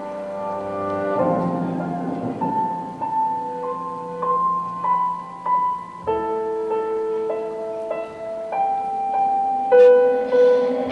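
Slow piano music: single melody notes over held chords, with new chords struck about a second in and again about six seconds in.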